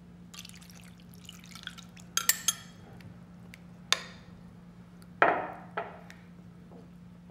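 Buttermilk poured from a glass measuring cup into a ceramic bowl of jackfruit chunks, with a spoon clinking against the cup as it is scraped out. Then a few spoon knocks against the bowl as the chunks are stirred in the liquid.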